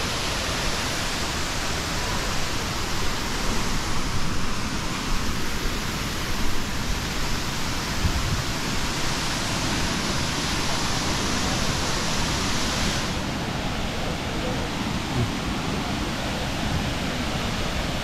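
Waterfall pouring into a plunge pool: a steady rushing noise. It turns a little duller about thirteen seconds in.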